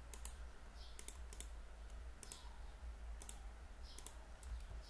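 Computer mouse buttons clicking, about five times, roughly once a second, each click a quick press-and-release pair, over a faint steady low hum.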